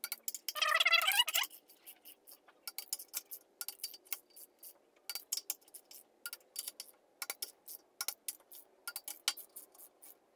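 Torque wrench ratcheting on the main bearing cap nuts of a small block Chevy. A quick buzzing run of ratchet clicks about a second in, then scattered sharp clicks and light metal clinks.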